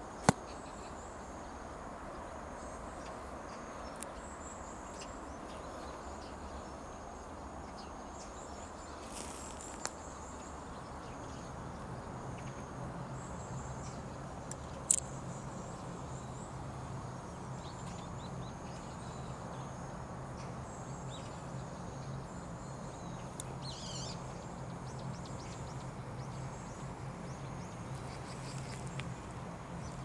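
Rural outdoor ambience: a steady background hiss with faint, high chirping coming and going. A low steady hum joins about a third of the way in. Two sharp clicks stand out, one right at the start and one about halfway.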